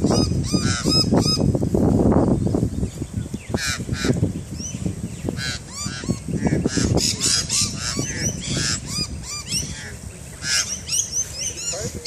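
Birds calling in bursts of short, harsh notes repeated in quick series, with a low rumble in the first couple of seconds.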